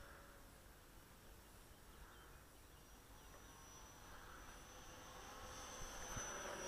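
Faint high-pitched whine of a radio-controlled Mirage jet's 64 mm 12-blade electric ducted fan in flight, growing louder toward the end as the plane passes closer.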